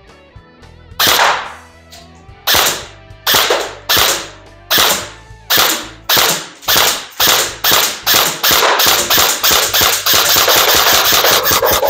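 Bolt B4A1 electric-recoil airsoft rifle firing single shots on semi-automatic. The shots come slowly at first, about one every three-quarters of a second, then quicker and quicker until the trigger is pulled rapidly near the end.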